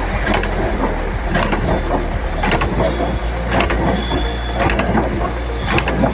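Production machinery running with a steady low hum and a clanking knock about once a second, over finer mechanical ticking.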